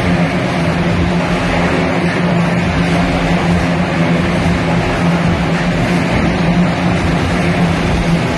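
Motorcycles circling at speed inside a steel-mesh globe of death, their engines running in one loud, steady drone.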